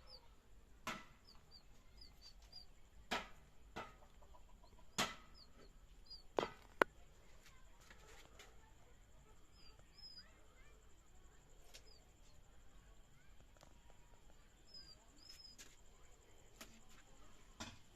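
Kalij pheasant chicks giving short, high, falling peeps now and then, with about six sharp knocks in the first seven seconds.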